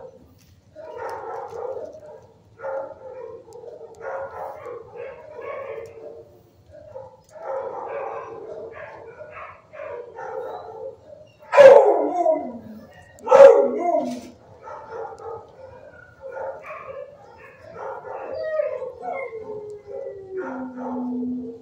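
Dogs in a shelter kennel barking and yelping over one another, with two loud barks about twelve and thirteen and a half seconds in that fall away in pitch. Near the end comes a drawn-out howl sliding down in pitch.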